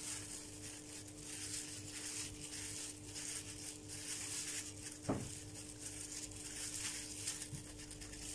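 A plastic-gloved hand tossing and pressing raw marinated chicken pieces in a dry flour coating on a glass plate: faint, repeated soft rustling and scuffing strokes. A steady low hum runs underneath, and there is one light knock about five seconds in.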